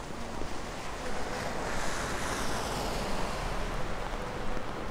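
Wet city street noise: a steady hiss of rain and traffic, with a vehicle's tyres swishing past on the wet road, swelling to a peak about two seconds in and fading.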